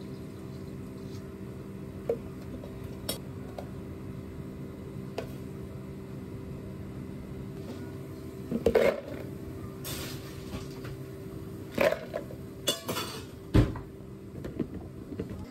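Kitchenware knocks and clatters at a café counter over a steady low hum: a few light clicks at first, then a run of sharper knocks and clatters in the second half as ice cubes are dropped into a plastic blender jar, the loudest a single thump near the end.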